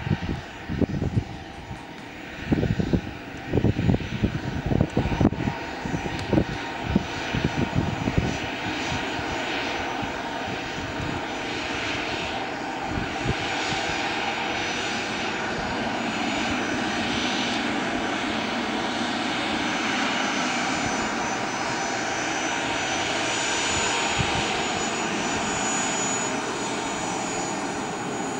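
Twin Pratt & Whitney Canada PW306D turbofans of a Cessna Citation Latitude running at taxi power as the business jet taxis past: a steady jet whine and hiss with thin high tones, growing slightly louder toward the middle. Gusts of wind buffet the microphone for the first several seconds.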